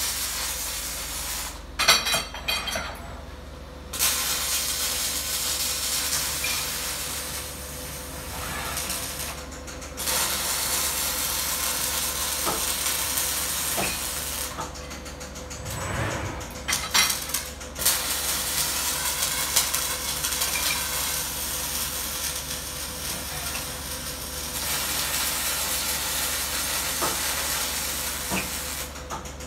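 Robotic gas-shielded wire-fed (MIG/MAG) welding arc hissing and crackling in long steady runs. It stops for a couple of seconds about two seconds in, briefly near ten seconds, and again for a few seconds past the middle, with a few sharp clicks in the pauses.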